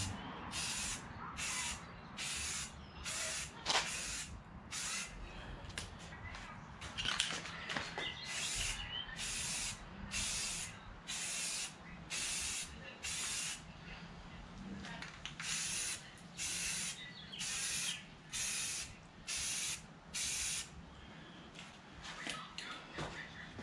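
Aerosol spray-paint can hissing in short bursts of about half a second each, one after another, as it is swept across a hubcap in controlled passes; there is a short pause about two-thirds of the way through, and the bursts stop near the end.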